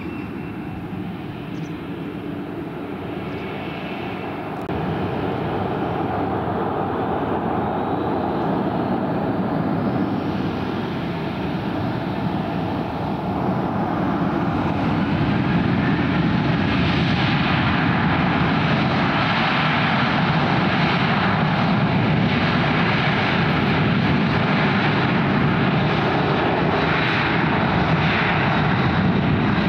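Jet airliner's engines running, getting louder in two steps, with a rising whine about ten seconds in as they spool up, then a steady loud roar.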